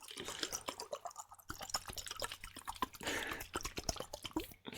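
Close-up wet liquid sounds for ASMR: a dense run of small crackling, squelching clicks over a splashy hiss, heavier near the start and again about three seconds in.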